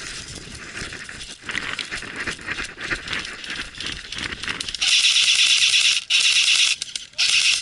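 Airsoft rifle firing three full-auto bursts, a long one, a shorter one and a brief one near the end, after a few seconds of crackling rustle and clicks.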